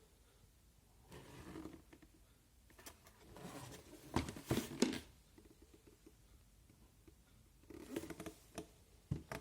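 Faint handling noises from unpacking and uncoiling a pressure washer's power cable. There are soft rustles and light knocks, with a couple of sharper clicks about halfway through.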